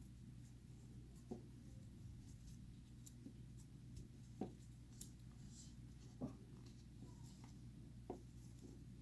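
Hands working paracord through a snake knot: faint rubbing and sliding of the cord, with four soft knocks spread through it, over a steady low hum.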